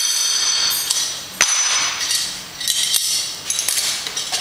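Metal clanks and clinks from a Rolling Thunder grip handle and its loaded weight plates being gripped and shifted, each leaving a high metallic ring. There is one sharp clank about a second and a half in, and a quick cluster of clinks near the three-second mark.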